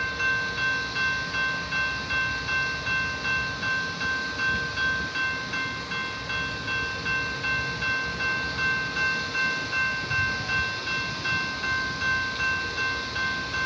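Railroad grade crossing bell ringing steadily, a little over two strikes a second, warning of rail movement over the crossing.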